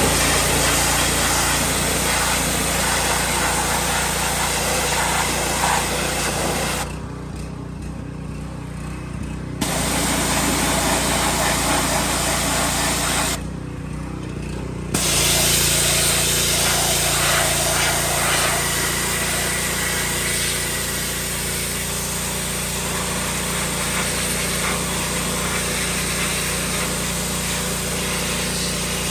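Pressure washer running, its motor humming steadily while the high-pressure spray hisses against the engine bay. The spray stops twice for a couple of seconds, about seven seconds in and again about thirteen seconds in, while the motor keeps running.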